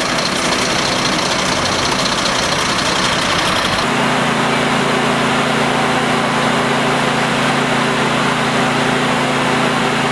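Emergency vehicle engines running steadily at idle, with a steady low hum setting in about four seconds in.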